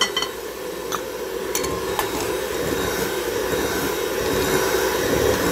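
Electric hand mixer running steadily, its beaters whisking a liquid egg batter in a glass bowl, with a few sharp clicks of the beaters knocking against the glass in the first two seconds.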